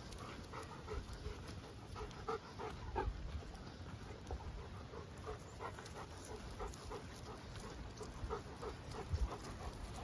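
A dog panting in a quick, even rhythm.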